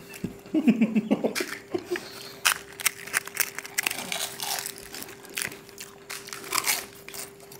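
Crisp fried pani puri shells being bitten and chewed by several people, with short sharp crunches scattered throughout over a faint steady hum. A man's voice speaks briefly about a second in.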